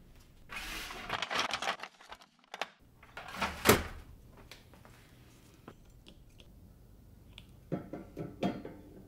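Handling noises at a workbench: a rustle about a second in, one sharp knock near the middle, and a few lighter knocks and clicks near the end as brass lamp parts are handled.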